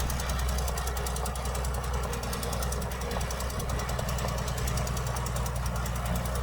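Heavy diesel earth-moving machinery, a bulldozer or dump truck engine, running steadily with a deep hum and a fast, even clatter.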